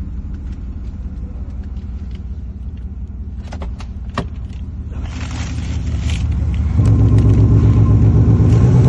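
Mercedes G-Class diesel idling through an active exhaust sound system, with a few sharp clicks around the middle. About two-thirds of the way in, the idle turns suddenly louder and deeper and stays there, as the active sound is switched on.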